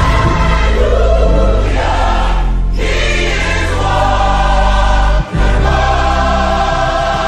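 Music: a gospel-style choir singing over a deep, steady bass, with a brief break about five seconds in.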